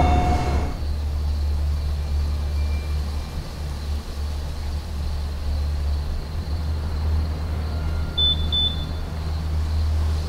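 Steady low rumbling drone, with two short high chirps about eight seconds in.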